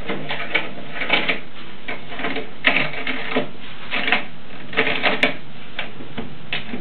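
Irregular clicking and knocking as small clamps are worked loose and taken off a freshly glued wooden window frame, with a few sharper clacks in the middle.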